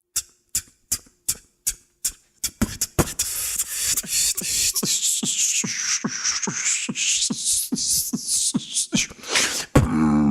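Vocal beatboxing: a run of sharp mouth clicks about three a second, then a denser beat under a hissing sound that sweeps down and back up in pitch. Near the end a low buzzing bass tone comes in.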